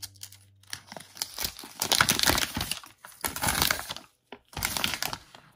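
Plastic toy-package wrapper crinkling and crumpling as it is handled and opened, in four irregular bursts of crackle with short pauses between them.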